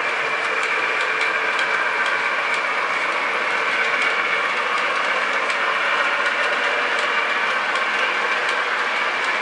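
Lionel Vision Line O-gauge model of Santa Fe steam locomotive 3000 and its cars running on the track: a steady mechanical running noise, with light clicks about once or twice a second.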